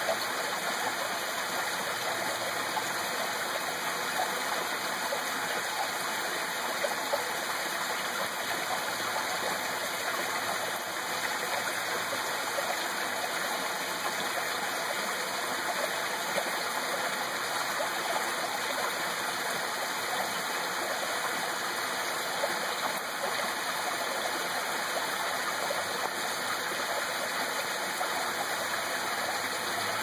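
Small garden pondless waterfall: water splashing steadily down several stacked rock ledges and running over stones below.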